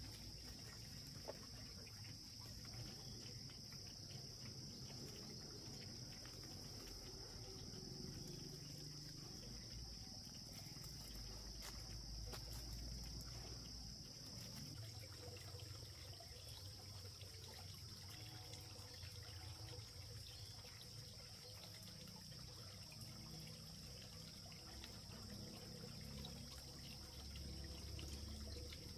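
Insects droning in one steady high-pitched note, with faint low rumbling underneath.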